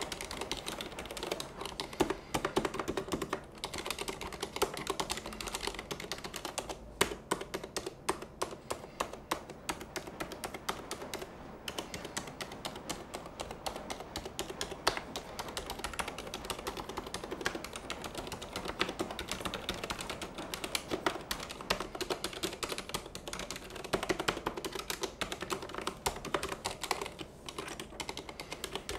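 Continuous fast typing on a full-size Thinkway Tochef mechanical keyboard with silent red switches: a dense stream of muted key clicks, struck fairly firmly and bouncily.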